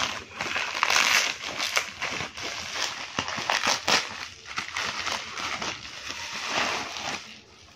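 Plastic courier mailer bag and bubble wrap crinkling and crackling as they are handled and pulled open, in irregular bursts. It dies down near the end.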